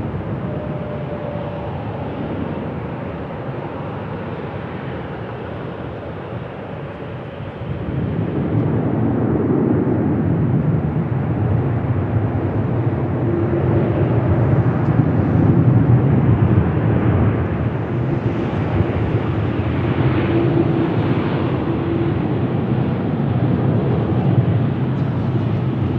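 Jet airliner engines running, growing louder about eight seconds in and staying loud, with a faint steady tone under the engine noise.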